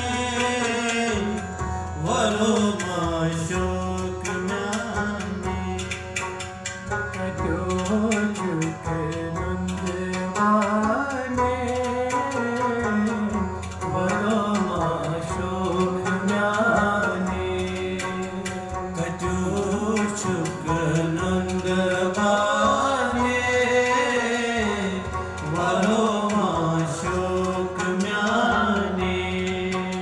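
Live Kashmiri song performed by male singers with harmonium, a hand drum and a plucked string instrument. The melody rises and falls over a steady harmonium drone, with drum strokes throughout.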